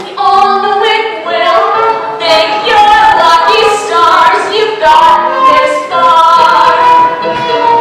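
Children's chorus singing a show tune together, settling into one long held note about five seconds in.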